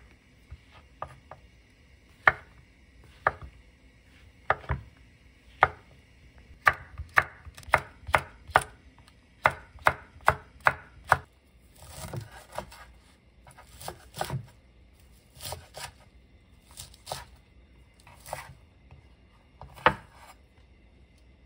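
Chef's knife chopping vegetables on a wooden cutting board: mushrooms, chili peppers and wild chives. The cuts start as spaced single strikes, pick up to a quicker run of about two a second in the middle, then turn into softer, longer strokes with one sharp strike near the end.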